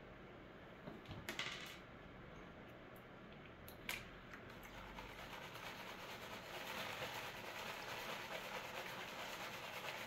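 Water and gravel swishing in a plastic gold pan as it is swirled and shaken in a tub of water, settling the heavy material to the bottom. Faint throughout, with two short sharp sounds in the first four seconds and a steady sloshing that grows a little louder about halfway through.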